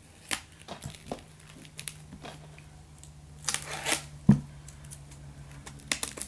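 Utility knife blade scraping and cutting along the sealed edge of a small product box, a run of short scrapes and clicks with a longer scraping stretch about three and a half seconds in. A sharp knock follows just after, the loudest sound, then fingers picking at the seal.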